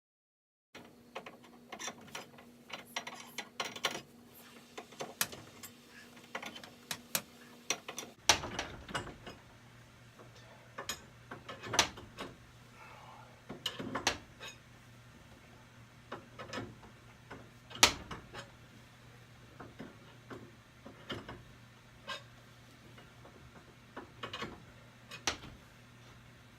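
Irregular metal clicks and clanks from hand-tool work on a garage door torsion spring assembly, with a few much sharper knocks among them.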